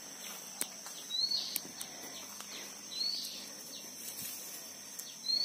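A bird giving a short rising call three times, about every two seconds, over a steady high insect drone, with a few faint clicks.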